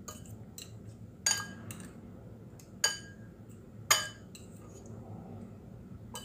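A metal fork clinking against a bowl as it turns a stick of Spam in beaten egg: a few sharp ringing clinks with lighter taps between.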